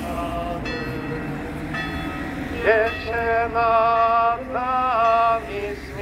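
Slow hymn singing in long held notes, faint at first and much louder from about two and a half seconds in, over a low steady rumble.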